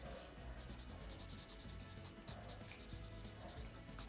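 Colored pencil scratching on paper in quick, short strokes, several a second, as fine fur is sketched.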